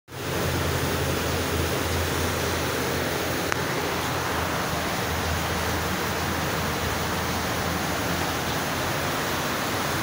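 Refrigerator compressor rigged as a paint-spray air compressor, running: a low steady hum under a loud, even hiss, with one small click about three and a half seconds in.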